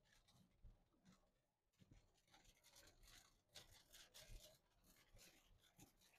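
Near silence, with a few faint, scattered ticks and rustles.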